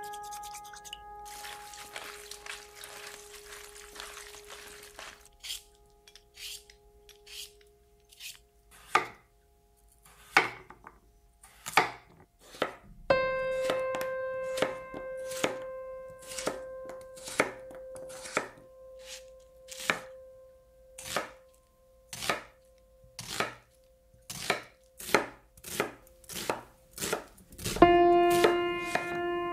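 A brush scrubbing crayfish in a pot of water for the first few seconds, then a chef's knife cutting through potato and later red onion onto a wooden board, one sharp cut at a time with short uneven gaps. Soft sustained music notes underneath.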